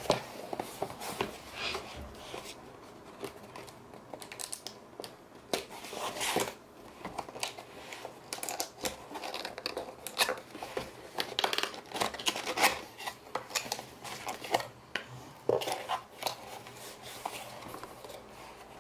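Cardboard box being opened by hand: flaps pulled open and a folded cardboard insert unfolded, with irregular scrapes, rubs and sharp clicks throughout.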